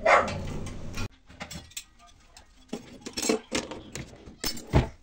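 A dog barks, cut short about a second in. Then pots and pans knock and clink several times, the loudest a dull thump near the end.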